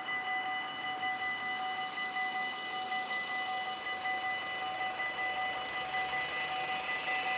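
Dutch level-crossing warning bell ringing in a fast, even rhythm while the barriers are down, signalling that a train is approaching.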